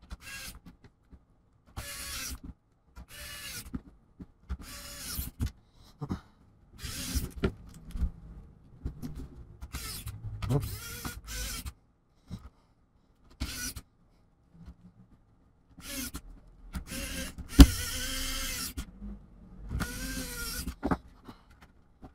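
Electric precision screwdriver driving screws in a laptop's plastic base, in about a dozen short runs, its small motor rising and falling in pitch with each one. A single sharp knock about three-quarters of the way through.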